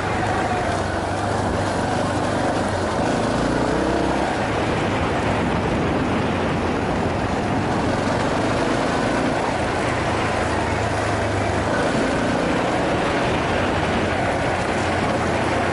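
Yamaha Serow 250's single-cylinder four-stroke engine running under way, its pitch rising and falling a little with the throttle in the first few seconds, with wind rushing over the helmet-mounted microphone.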